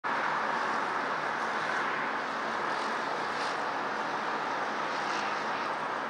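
Steady, even rush of distant road traffic.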